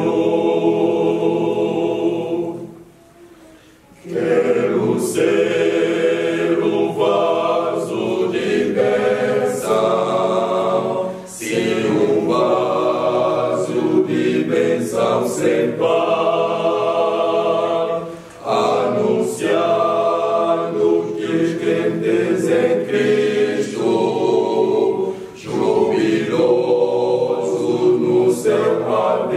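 Male voice choir singing unaccompanied in parts, in phrases broken by short breaks, the longest about three seconds in.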